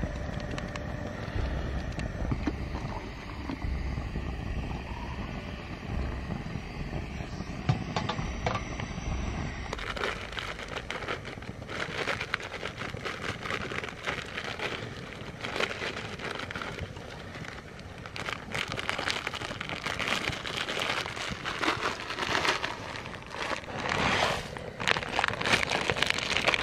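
Camp-cooking noise: a portable gas stove heating a pot of water, with the crackle and crinkle of food packets being handled and emptied. The crackling becomes busier about ten seconds in.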